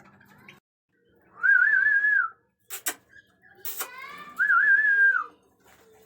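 Whistling: a short warbling whistled phrase, sounded twice about three seconds apart, with two sharp clicks between.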